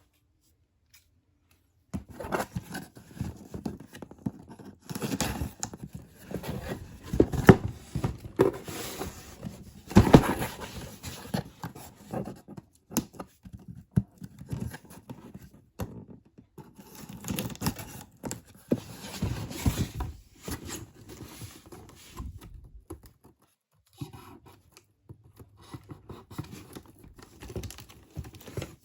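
Sneaker box and its packaging being handled and opened: irregular rustling, scraping and crinkling of paper and cardboard with occasional sharp knocks. It starts about two seconds in and pauses briefly near the end.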